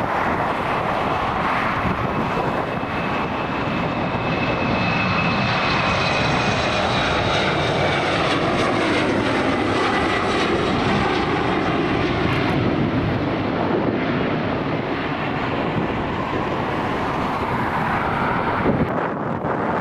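Airliner taking off at takeoff power: a steady, loud engine rush with a high whine that slowly falls in pitch as it goes past.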